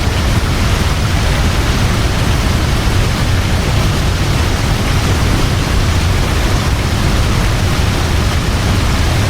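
Large waterfall plunging over a cliff into a river: a steady, loud rush of falling water with a deep low rumble under it.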